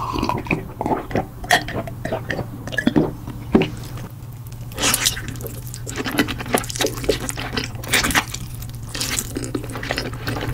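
Close-miked eating sounds: wet slurping and chewing of spicy buldak fire noodles topped with corn cheese, full of quick mouth clicks and smacks, over a steady low hum.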